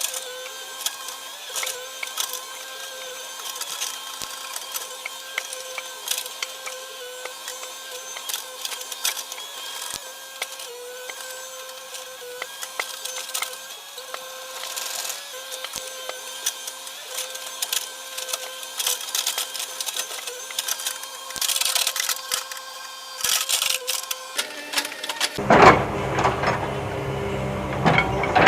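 Hitachi hydraulic excavator working, a steady whine with frequent clicks and knocks. About 25 seconds in, a deep rumble comes in and it gets louder.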